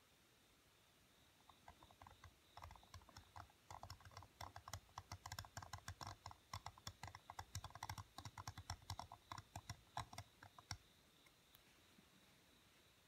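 Steel carving knife cutting into a seal stone: a quick, irregular run of small scratchy clicks, several a second, as the blade chips away the stone. It starts about a second and a half in and stops a couple of seconds before the end.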